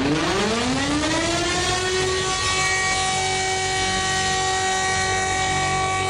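Civil-defence siren winding up from a low pitch, rising over about two seconds to a steady wail that then holds, with a heavy low rumble underneath from the bass being boosted.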